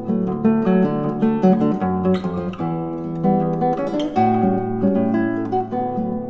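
Solo classical guitar playing a Brazilian choro: a plucked melody of quick notes over a moving bass line.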